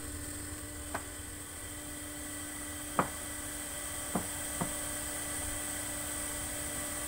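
Coconut sap boiling hard in a wok over a wood fire: a steady hiss and hum. Four sharp crackles from the burning firewood stand out, one about a second in, one near three seconds, and two close together just after four.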